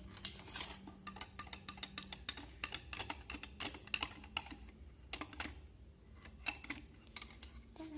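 Metal spoon stirring salt into water in a glass jar, making a quick, irregular run of small clinks and taps against the glass that thins out near the end.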